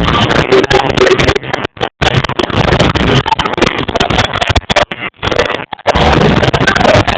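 Live band music at a concert, recorded on a phone microphone overloaded by the volume: harsh and distorted, with repeated brief dropouts.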